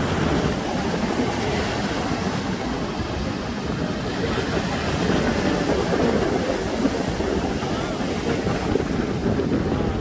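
Sea waves breaking and washing up on a sandy beach, a steady surf that swells a little about halfway through, with wind buffeting the microphone.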